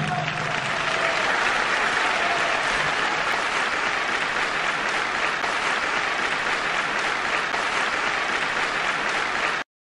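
Theatre audience applauding steadily; the applause cuts off abruptly near the end.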